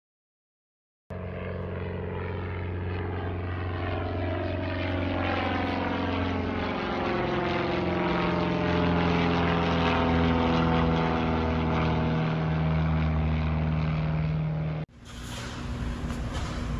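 Propeller airplane flying over: a steady droning engine note whose pitch sinks slowly, growing louder to a peak about two-thirds of the way through. It starts abruptly a second in and breaks off suddenly near the end, where a different steady noise takes over.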